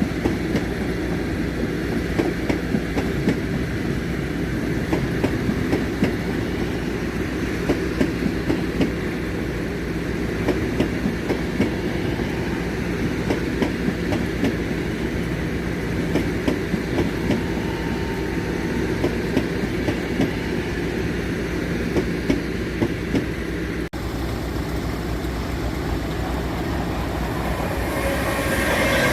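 Train running through a station: a steady low hum with many irregular clicks of the wheels over rail joints and points.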